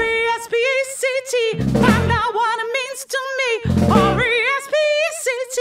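Female lead vocalist of a live rock band singing long held notes with wide vibrato. Drums and bass come in only in short hits, about twice, leaving the voice almost alone in between.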